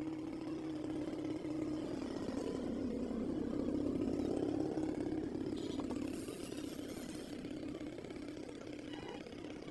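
A motor engine running steadily with a low hum that swells louder in the middle, and a short hiss about six seconds in.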